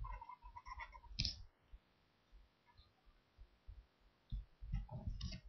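Faint, irregular soft knocks and clicks from handling at a desk close to the microphone while a card is written by hand, with one sharper click about a second in.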